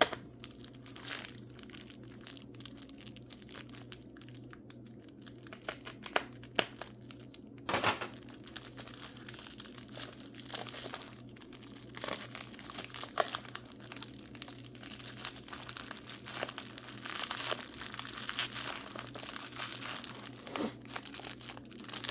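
Packing material crinkling and tearing as a wrapped mineral specimen is unwrapped by hand, in irregular spells with sharp little crackles. The rustling is busiest in the second half, over a faint steady low hum.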